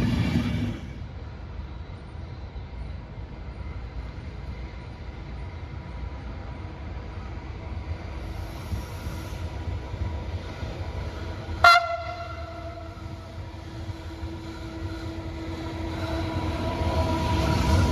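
Train running on the line with a low rumble; a single brief, sharp horn toot about twelve seconds in. The sound then grows louder with a steady hum as a train approaches near the end.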